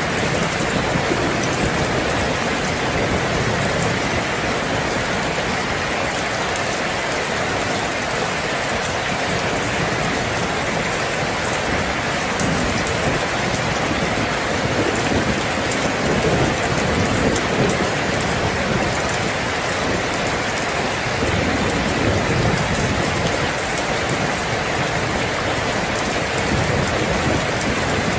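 Heavy rain falling steadily, with low rumbles of distant thunder swelling and fading partway through and again near the end.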